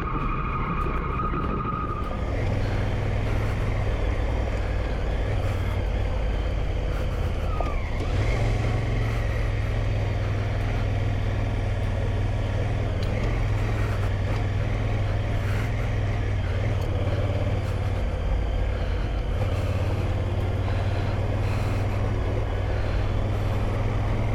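Twin-cylinder adventure motorcycle engine running steadily under way on a gravel dirt track, a low even drone mixed with wind and tyre-on-gravel noise.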